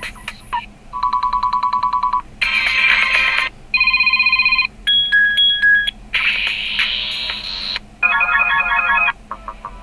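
CAT S53 smartphone playing its default ringtones one after another, each cut off after about a second as the next one starts. The run includes a fast electronic trill, short musical snippets and steady beeping chords.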